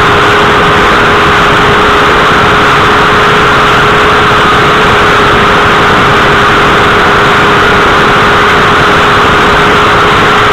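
Suzuki GSX-R1000 K7's inline-four engine held at high revs at a steady pitch while the bike runs at high speed. Loud wind rush overloads the microphone and almost buries the engine note.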